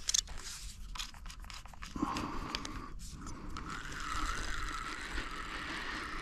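A carp run on a ledgered rod: after a few clicks and scrapes, a steady, slightly wavering whine sets in about two seconds in as a hooked carp takes line from the reel.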